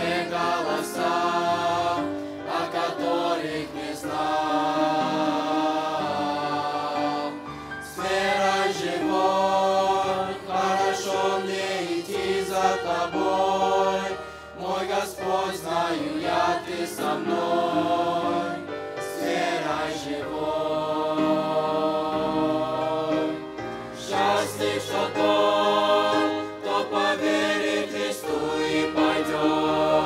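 Youth choir singing a Russian-language Christian hymn, in long sung phrases with short breaks between them.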